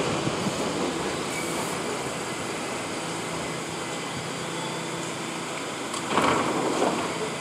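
R68 subway train rolling to a stop alongside the platform, its rumble fading over the first few seconds to a steady running hum while it stands. A brief louder burst of noise comes about six seconds in.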